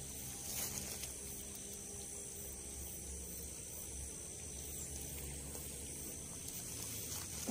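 Insects chirring steadily at a high pitch over a low background rumble, with a faint click about half a second in.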